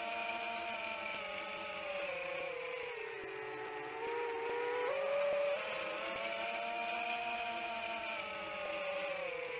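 Chimera 7 long-range FPV quadcopter's brushless motors and propellers whining, picked up on board by the drone's own camera unit. The pitch slides down and back up a few times, with a sharp rise about five seconds in, as the GPS rescue autopilot varies the throttle.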